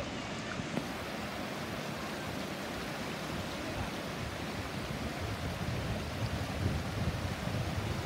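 Shallow rocky stream rushing steadily over and between stones in small riffles. From about halfway through, a low rumble of wind on the microphone builds under the water.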